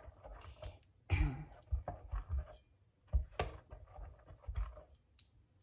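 Silicone spatula stirring runny rice-and-coconut-milk batter in a glass bowl: irregular soft knocks and scrapes against the glass, with louder knocks about a second in and about three and a half seconds in.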